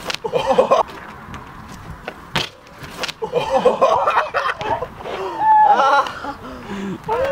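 Laughter and short vocal exclamations from a group of people, with two sharp knocks about two and a half and three seconds in.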